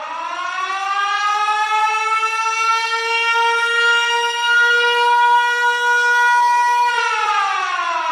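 Warning siren sounded for an earthquake drill. It winds up in pitch, holds a steady wail, then begins to wind down near the end.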